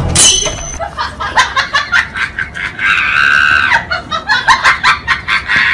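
Shrill laughing and shrieking in quick repeated bursts, with one longer held shriek about three seconds in.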